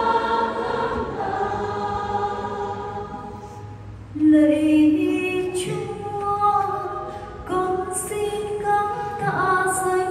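A choir singing slow held notes in parts. One phrase dies away about three seconds in, and a new, louder phrase starts about four seconds in.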